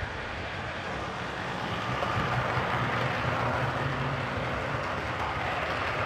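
Heljan OO gauge Class 25 model diesel locomotive and its coaches running past on the layout track: a steady drone and rail noise that grows louder about two seconds in as the train passes close.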